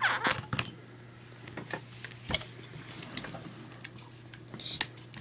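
Scattered clicks and light knocks of small airsoft rifle parts and tools being handled during reassembly, bunched in the first half second with another sharp click about two and a half seconds in, over a faint steady low hum.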